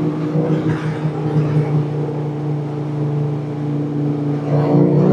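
Suzuki GSX-R600 inline-four engine heard from the rider's seat, holding steady revs under wind rush, then climbing in pitch and getting louder near the end as the throttle opens.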